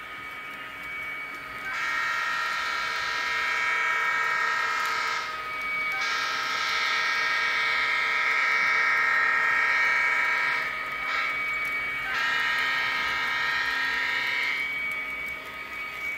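Electronic diesel horn from a sound-equipped MTH model locomotive, blown in the grade-crossing pattern: two long blasts, a short one, then a long one.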